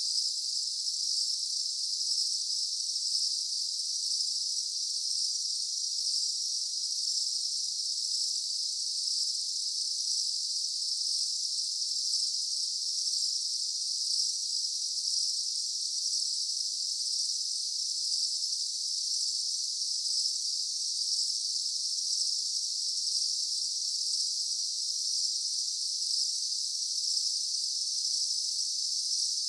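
Daytime insect chorus: a dense, steady, high-pitched buzzing trill of many insects.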